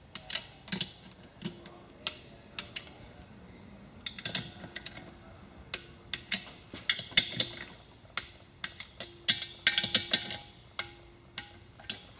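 A ratcheting socket wrench clicking in short, irregular runs of sharp metallic ticks while bolts on an engine case are tightened. A faint ringing tone sits under some of the runs.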